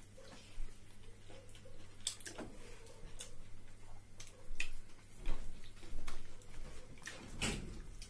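Eating by hand: scattered wet clicks and smacks from chewing and from fingers working rice and curry on paper plates, with a few louder knocks in the second half.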